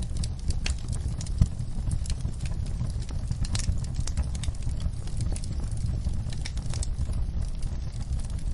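Wood fire crackling in a fireplace: irregular snaps and pops over a steady low rumble of the flames, with one louder pop about a second and a half in.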